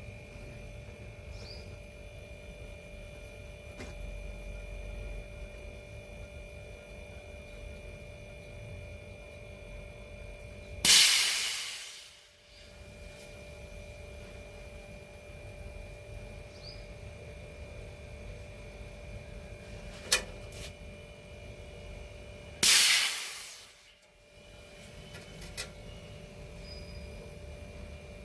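Two sudden bursts of loud hiss, each fading out over about a second, over a steady electrical hum.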